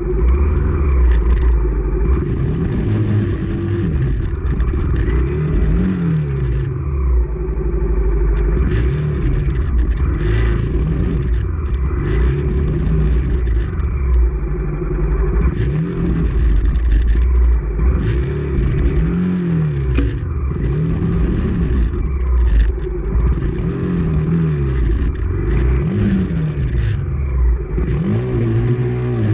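Honda CRF250F's four-stroke single-cylinder engine being ridden on rough trail, its pitch rising and falling over and over with throttle changes. A rushing hiss comes and goes throughout.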